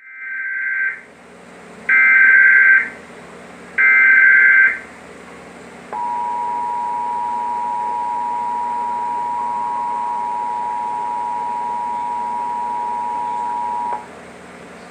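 Emergency Alert System SAME header: three one-second bursts of shrill, buzzy data tones about two seconds apart. Then comes the EAS two-tone attention signal, held steady for about eight seconds before it cuts off, marking the start of the national test broadcast.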